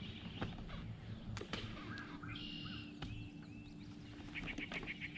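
Wild songbirds calling: a few short chirps in the middle, then a fast, even series of repeated chirps, about five a second, from about four seconds in.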